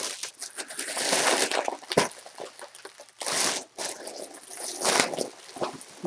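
Helium drawn in by mouth from a foil balloon in a few breathy rushes, with crinkling and clicks from the foil being handled.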